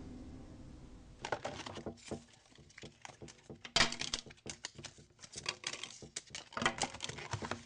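Hands rummaging through a small box of cards and papers: a run of light clicks, taps and rustles.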